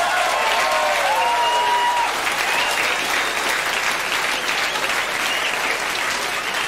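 Comedy club audience applauding and laughing after a joke: dense clapping throughout, with a few voices laughing and calling out over it in the first two seconds.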